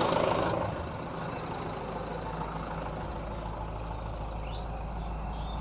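Mitsubishi Canter 110 PS diesel engine idling steadily after injector, valve and fuel-pump adjustment, its idle speed a little high by the mechanic's own reckoning.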